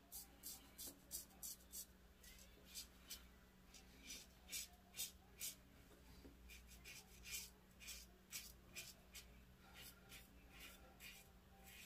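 Double-edge safety razor scraping through lathered stubble: a faint run of short, crisp strokes, two or three a second with brief pauses between runs.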